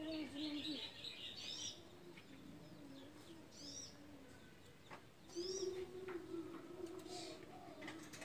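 Spotted dove (derkuku) cooing in low, even notes: a short phrase at the start and a longer one from about five seconds in. Small birds chirp high above it.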